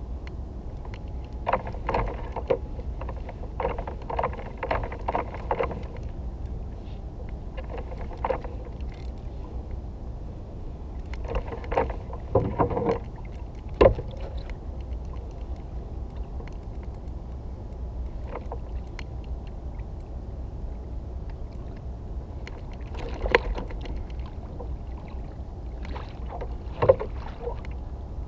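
Spinning fishing reel clicking in short rapid spells as a hooked fish is reeled in to a kayak, with a few single sharp knocks, over a steady low rumble.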